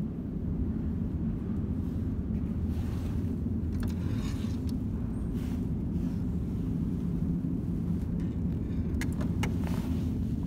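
Steady low rumble of subway station background noise, with a few clicks and knocks about a third of the way in and again near the end as a payphone handset is lifted and handled.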